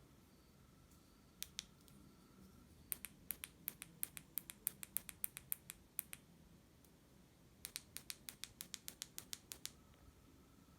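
Punch needle pushed through fabric in quick runs of sharp clicks, about five a second: a short run about three seconds in and another near eight seconds.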